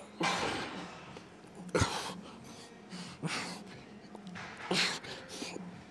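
A man breathing hard, with short forceful exhales about every second and a half as he strains through the last reps of a heavy dumbbell set.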